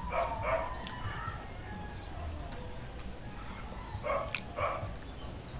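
Two pairs of short animal calls, one just after the start and one about four seconds in, over high chirps of birds.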